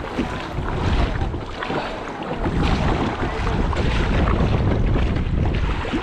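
Wind buffeting the microphone, growing louder about two and a half seconds in, over choppy sea water splashing and slapping against the hull of a sit-on-top kayak being paddled through waves.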